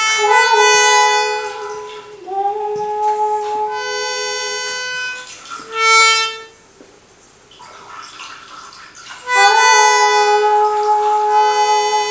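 Self-playing reed instruments sounding long held chords of several notes that swell and fade. Each chord comes in with a slight upward slide into pitch. A short loud swell comes about six seconds in, then a quieter stretch before a loud chord returns about nine seconds in.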